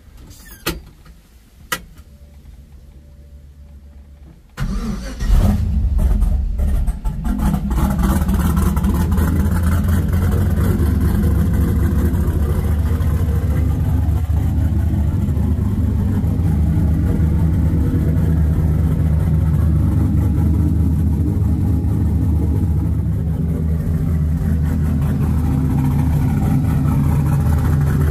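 Turbocharged 5.3-litre LS V8 starting: a few clicks, then it cranks and fires about four and a half seconds in, flares up briefly and settles into a steady, loud idle.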